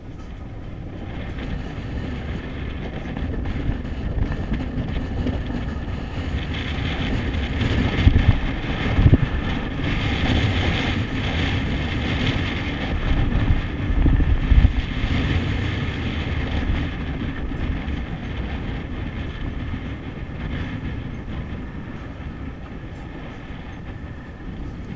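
Wind buffeting the microphone on an open boat at sea: a steady low rumble that swells into two louder gusts around the middle, then eases.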